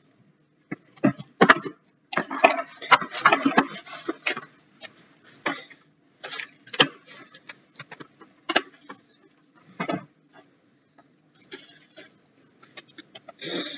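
Plastic cling wrap crinkling and crackling in a quick, irregular string of clicks as it is pulled from its box, torn off and scrunched around a lump of cookie dough.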